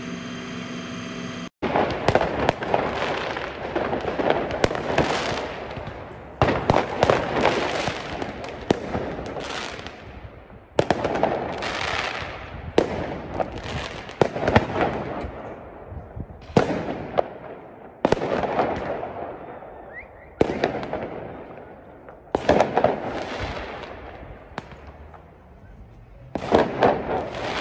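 Firework mortars going off again and again: clusters of sharp bangs and cracks, each trailing off in a crackling echo, several every few seconds. A brief steady engine hum comes before the first bang.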